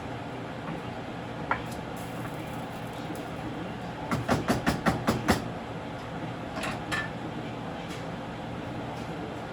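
Kitchen utensils knocking against cookware: a single click, then a quick run of about seven sharp knocks about four seconds in, and a couple of ringing metallic clinks near seven seconds, over a steady background hum.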